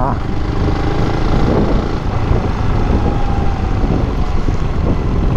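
Motorcycle riding at road speed: a Yamaha WR250X's single-cylinder engine running steadily under a rush of wind noise on the microphone.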